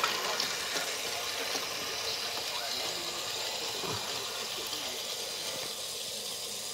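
Lionel O-gauge steam locomotive running on the track, its sound system giving a steady steam hiss; a short falling tone about four seconds in.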